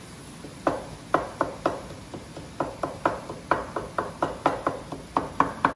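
Wooden spatula knocking against the side of a stainless steel pot while stirring fried cauliflower rice: a series of sharp knocks, about three a second, starting about a second in, with a short pause near the middle.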